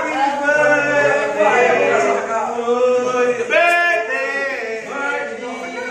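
A group of people singing together, mostly men's voices, with long held notes.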